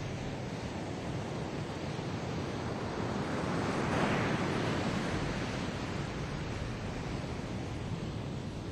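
Ocean surf washing onto a sandy beach: a steady rush of waves that swells to its loudest about four seconds in and then eases.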